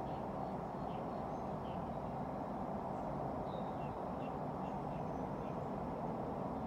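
Steady low background noise with faint, scattered bird chirps.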